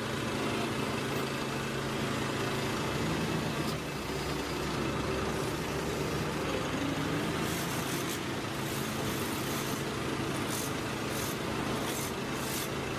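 Heavy diesel engine of construction machinery running steadily, with several short hisses in the second half.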